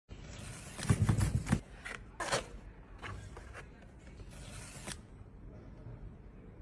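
An iPhone 16 Pro retail box being handled and opened. A quick run of sharp tearing and scraping noises comes about a second in, another short rip shortly after, then softer rustling and sliding.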